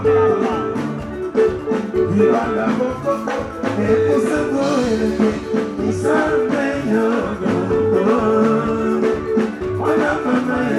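Live soukous dance band playing: interlocking electric guitar lines over bass and drums, at a steady dance beat.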